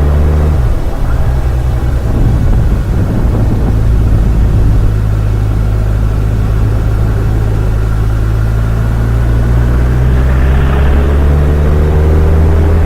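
Kawasaki Ninja 1000's inline-four engine and exhaust running under way. The engine note changes about half a second in, holds steady, then rises near the end as the revs climb.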